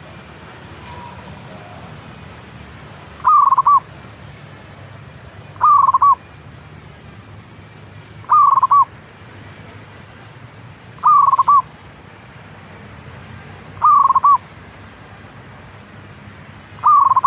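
Zebra dove (perkutut) cooing: a short trilled coo repeated six times, about every two and a half to three seconds, over a faint background hiss.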